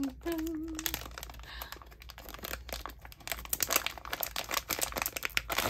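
Silver foil Pop Mart blind-box bag crinkling and tearing as it is pulled open by hand: a dense, irregular run of crackles.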